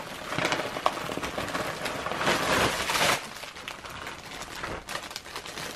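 Paper shopping bag and plastic packaging rustling and crinkling as a dog noses into it and hands handle it, loudest for the first three seconds and quieter after.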